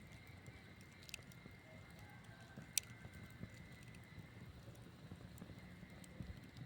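Campfire burning with a faint low rumble and scattered small crackles, and one sharp pop about three seconds in.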